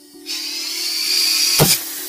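Pressurised gas hissing loudly from a tank valve that is opened to feed a homemade valveless pulsejet during a start attempt. About a second and a half in there is one short, sharp pop.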